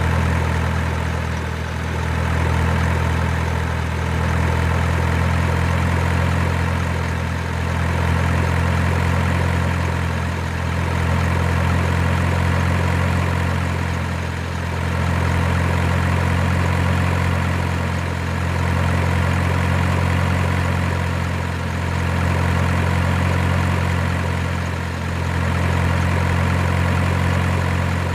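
Low, steady truck engine idling sound, dipping slightly and swelling back about every three and a half seconds like a repeating loop.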